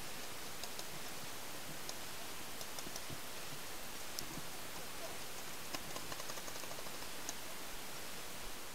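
A steady hiss on the helmet-cam microphone, with faint, irregular sharp ticks of paintball markers firing in the distance.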